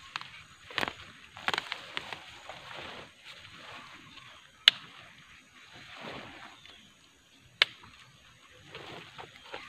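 Rustling and crumbling of soil, roots and leaves as bare hands pull at a taro plant and break clods of earth from a dug hole, in short bursts. Two sharp clicks stand out, one about halfway through and one near the end.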